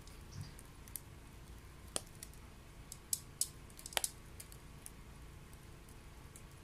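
Wet wood burning in a homemade secondary-combustion stove, crackling with scattered sharp pops, the loudest a little after three and four seconds in, over a low steady rumble.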